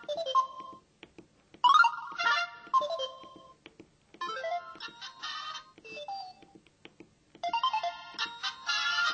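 Samsung SPH-V6500K mobile phone playing a series of its built-in alert sound effects through its speaker. There are four short melodic ringtone jingles, one after another, each lasting about one to two seconds, with brief pauses between them.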